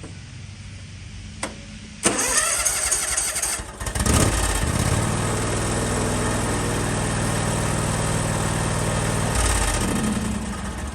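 John Deere X320 lawn tractor engine cranked by its starter for about two seconds, catching and running steadily, then dying down near the end. It is a start on the key through a newly replaced ignition switch, which confirms the no-start fix.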